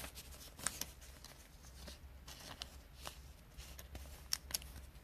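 Trading cards being handled and flipped through: light rustling and sliding with a few sharp ticks, the sharpest about a second in and near the end.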